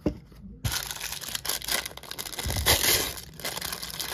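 White paper wrapping crinkling and tearing as hands pull it open around a small plastic toy accessory. A short knock comes at the very start.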